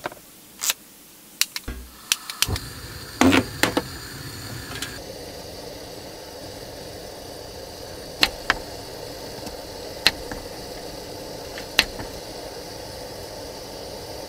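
A few sharp clicks, then a small canister gas stove's burner catches and hisses steadily, the hiss growing fuller about five seconds in. Metal tongs clink three times against the aluminium mess tin over the flame.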